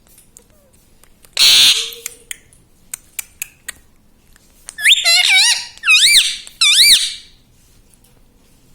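Indian ringneck parakeet vocalizing: one short harsh squawk, a few faint clicks, then a run of quick warbling, squeaky calls near the end.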